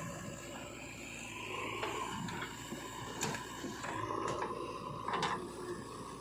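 Machinery running steadily, with a handful of sharp knocks and clanks over the last few seconds.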